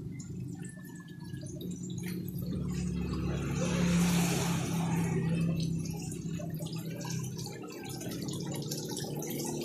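Water running and trickling over a steady low hum, swelling into a louder rush of water about four seconds in.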